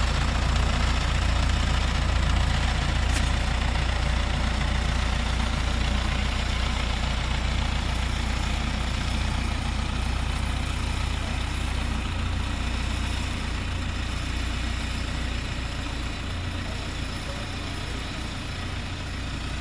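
Heavy vehicle's engine idling with a steady low hum, slowly fading toward the end.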